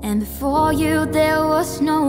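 Background music: a song whose vocal line comes in at the start, with held notes over a steady instrumental accompaniment.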